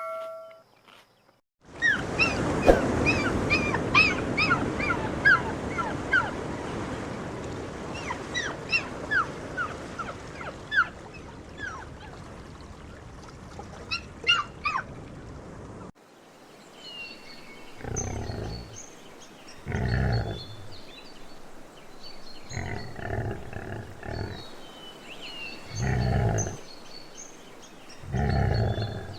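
Animal sound effects: from about two seconds in, many birds chirp over a steady rushing background. From about halfway, a large animal gives a series of short, deep calls every two to three seconds while birds chirp higher above.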